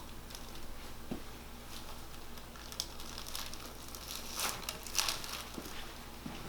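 Faint rustling of clothing and bodies shifting on a chiropractic table as a patient is positioned for an upper-back and neck adjustment, over a low steady hum. Two brief, slightly louder rustles come past the middle.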